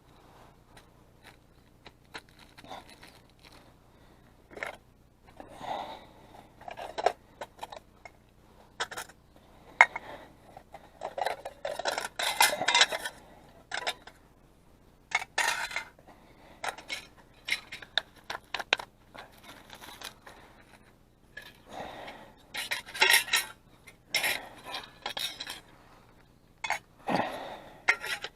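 Metal camp cookware and stove parts being handled and fitted together: irregular clinks, knocks and scrapes, with busier clusters about a third of the way in and again near the end.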